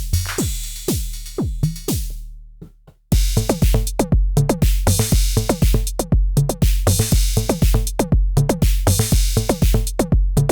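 Original Arturia DrumBrute analog drum machine playing a sequenced beat of kicks, pitch-falling drum sounds and hi-hats. The pattern stops about two seconds in and rings out, then restarts about a second later with a steady heavy kick, now without the Zap voice.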